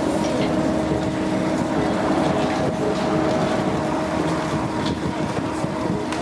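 Steady machine hum with a constant drone at several fixed pitches, under faint background chatter.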